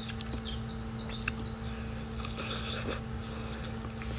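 Close-up chewing of fresh strawberries: wet mouth smacks and crunchy clicks every second or so, with birds chirping faintly in the background.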